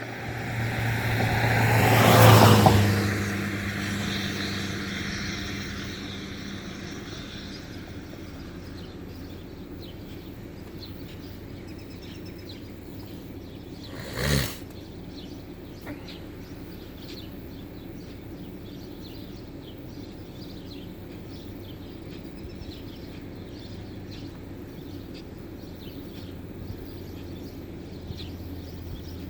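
A vehicle passes close by, loudest about two seconds in and fading over the next few seconds, over a steady low hum. A single short, sharp sound comes about halfway through.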